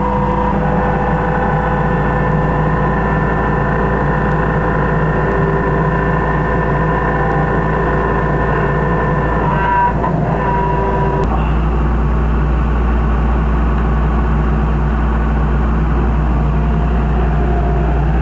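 Can-crushing press machine running with a steady motor hum and a few fixed tones. About ten seconds in the sound changes: the upper tones shift and the low hum grows stronger.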